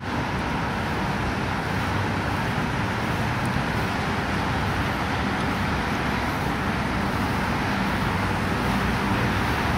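Steady hiss of distant road traffic, running evenly throughout.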